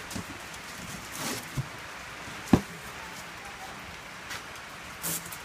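A few dull thumps of footsteps on a concrete floor and a cardboard box being handled, the loudest about two and a half seconds in, over a steady hiss, with a brief hissy scrape near the end.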